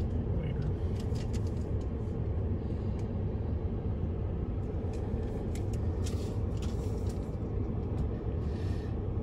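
Ford F-150 engine idling as heard inside the cab, a steady low rumble as the truck creeps forward, with a few scattered light clicks.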